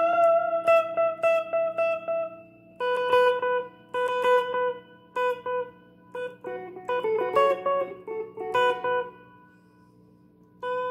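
Electric guitar played through a Valeton Dapper Amp Mini multi-effects pedal into a Fender Champion 20 amp. It begins with a held note picked in a steady quick rhythm, moves into short picked melodic phrases, and fades almost to quiet near the end before a new note is struck.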